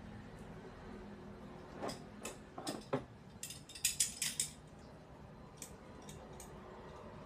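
Small metal objects clinking and clattering as they are handled. There is a cluster of sharp clinks about two to four and a half seconds in, then a few lighter taps, over a low steady background hum.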